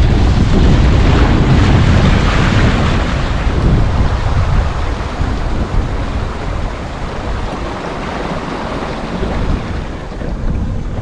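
Wind buffeting the microphone, with water rushing along the hulls of a Hobie Getaway catamaran under sail. The noise is loudest in the first few seconds and fades over the second half.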